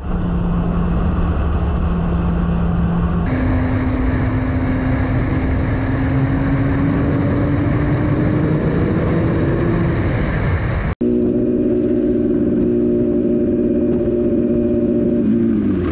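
Suzuki sportbike engine running at highway speed under heavy wind rush, its pitch climbing slowly as it accelerates. After a cut about eleven seconds in, a second motorcycle's engine hums steadily, then drops in pitch near the end as it slows.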